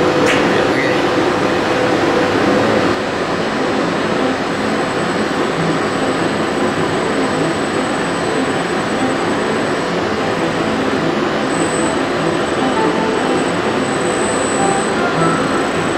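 Loud, steady machinery noise from an industrial robot cell while a program runs, with no distinct strokes or rising and falling pitch. The level drops slightly about three seconds in.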